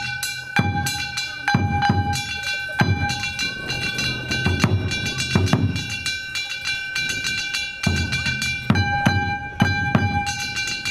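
Danjiri-bayashi festival ensemble practising: repeated taiko drum strokes over steady high ringing tones.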